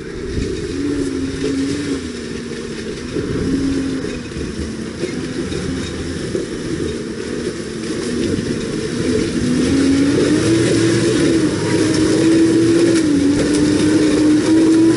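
Mitsubishi L200 pickup's engine pulling under load up a steep, rocky off-road climb, its note rising and falling with the throttle. About ten seconds in it grows louder and its pitch rises and holds higher as the truck comes closer.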